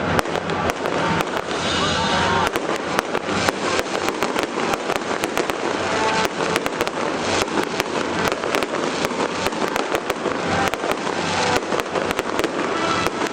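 Fireworks display: a dense, continuous run of bangs and crackling from shells bursting, several a second without a break.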